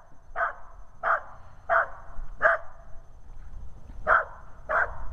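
Australian cattle dog (red heeler) barking at a protection helper who holds a bite sleeve: a Schutzhund guarding bark. Six sharp barks, about one every 0.7 seconds, with a pause of about a second and a half after the fourth.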